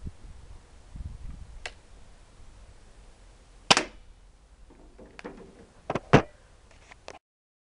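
.177 air pistol shots, sharp cracks rather than bangs: a faint click, a loud shot about a third of the way in, then a quick cluster of knocks and cracks with the loudest near the end, as a plastic milk jug on a wooden table is hit and tips over. The sound cuts off abruptly shortly before the end.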